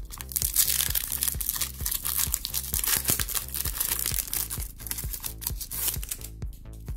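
Foil wrapper of a Pokémon booster pack crinkling and tearing as it is pulled open by hand, stopping near the end. Background music with a steady beat plays underneath.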